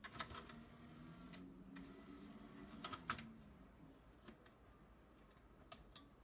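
DVD player's disc tray mechanism moving: clicks and a faint motor whir for about three seconds, ending in a sharp click, then a few light ticks. The tray is cycling on its own, a fault the owner puts down to anything from a sticky button to a malfunctioning drive.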